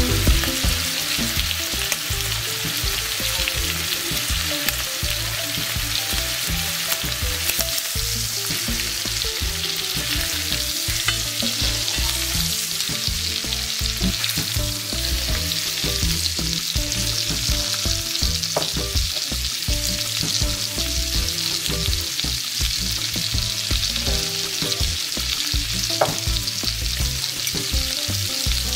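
Chicken breasts frying in oil and butter in a pot, a steady sizzle, while tongs turn the pieces partway through.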